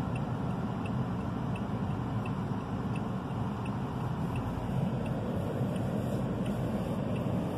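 Steady low rumble of a car's engine and tyres heard from inside the cabin, with faint, regular ticking about two to three times a second.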